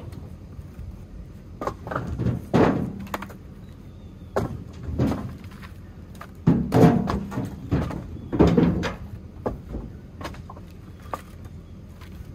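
Split firewood logs knocking and clattering against each other as they are tossed and stacked onto a woodpile, in irregular knocks every second or two, loudest a little past the middle.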